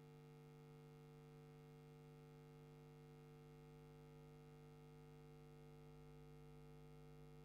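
Near silence, with only a faint, steady low hum running unchanged.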